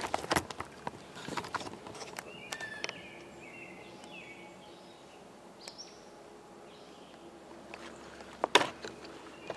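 Quiet woodland ambience with knocks and rustles of a handheld camera being moved, a few short bird chirps in the middle, and one sharp handling knock near the end.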